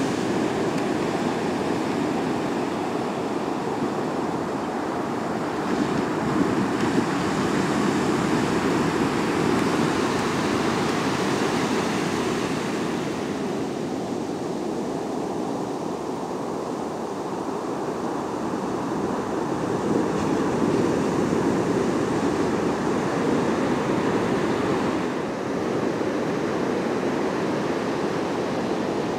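Pacific surf breaking and washing up a sandy beach: a steady rushing wash that swells twice and eases in between.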